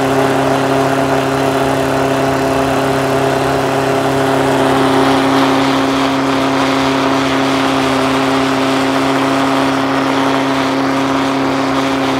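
Steady rushing of rail-welding preheater burners blowing flame onto a rail joint, over the steady drone of a small engine-driven unit that feeds them. The sound holds unchanged throughout: the rail is being preheated before the weld.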